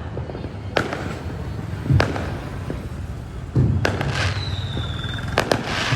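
Fireworks bursting: a series of sharp bangs at irregular intervals, several close together near the end, each trailing off in an echoing rumble. A brief high whistle sounds partway through.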